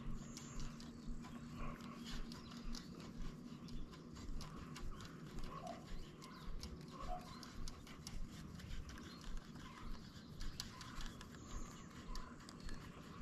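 Footsteps of a person walking at a steady pace, about one and a half steps a second.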